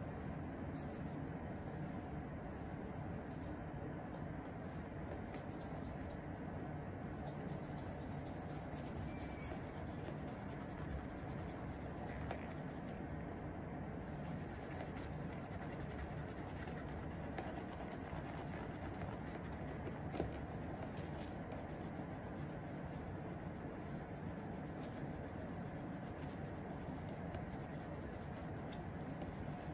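A cloth wrapped around the fingers rubbing back and forth over a suede shoe upper, a soft, steady scratchy brushing.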